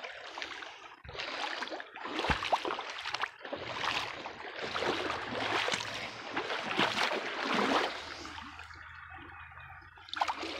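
Shallow creek water splashing and sloshing in uneven surges as a person wades through it, over the running of the stream, with one sharp knock about two seconds in. The splashing eases off for the last couple of seconds.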